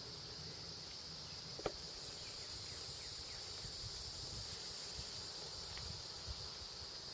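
A steady, high-pitched insect chorus with a low rumble of background noise beneath it, and one sharp click about a second and a half in.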